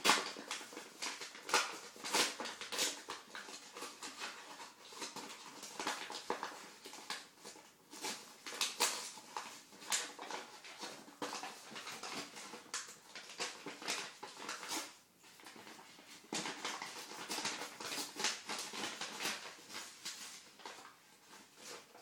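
Paper mail envelope being torn open and rustled by hand: a long run of irregular rustles and rips, with a brief lull about fifteen seconds in.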